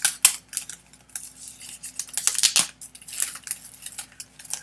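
A shipping box being opened by hand and its packing handled: an irregular run of short crinkly rustles and sharp clicks and taps, the sharpest about a quarter-second in.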